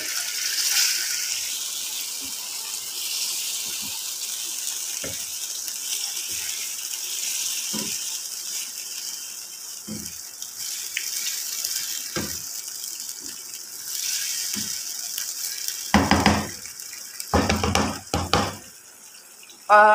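Beef kofta curry sizzling and bubbling in a non-stick pan with yogurt just stirred in: a steady hiss with a few soft pops. Near the end a wooden spatula stirs and scrapes against the pan in two or three louder bursts.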